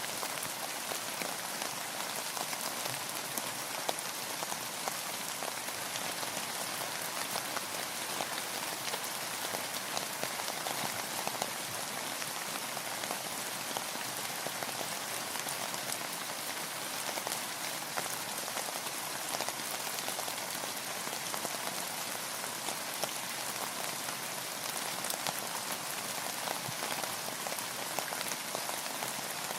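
Steady rain falling, an even hiss thick with the patter of many small drops striking a surface.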